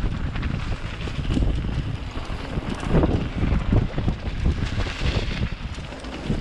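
Wind buffeting an action camera's microphone during a fast downhill mountain-bike ride, over the rumble of tyres rolling on a dirt trail. Scattered short knocks and rattles come from the bikes going over bumps.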